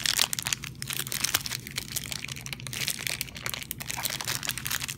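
Thin clear plastic bag crinkling in the fingers as it is handled and worked open around a small toy figure: a rapid, irregular run of crackles.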